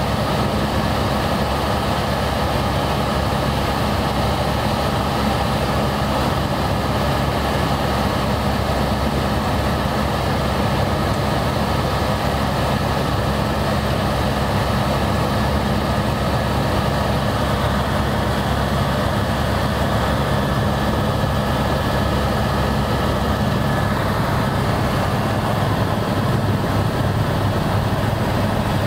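Helicopter turbine and rotor running steadily in flight, heard from inside the cabin: a constant loud drone with a steady low hum.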